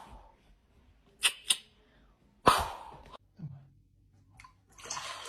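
A cat giving short, sharp, sneeze-like puffs: two quick ones in a row about a second in, then a single longer one, followed by a few fainter sounds.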